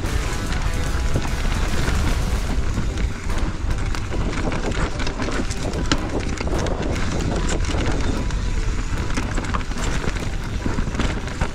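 A mountain bike descending a race stage at speed: wind buffeting the microphone as a heavy rumble, with tyres on dirt and rock and the chain and frame rattling in a constant stream of clicks. Music plays underneath.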